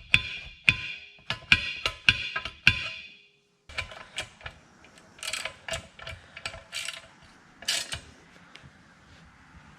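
Sharp metallic clicks and clinks of hand tools, with a ratchet wrench snugging a bolt on the starter idler gear assembly. A short break comes about three seconds in, then more scattered clinks.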